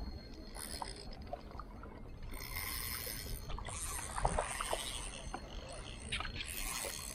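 Small sea waves washing and lapping against shoreline rocks, coming in several surges of hiss over a low steady rumble, with a few small clicks.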